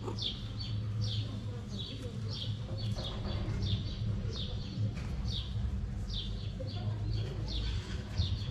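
A small bird chirping over and over, short falling chirps about two a second, over a steady low hum.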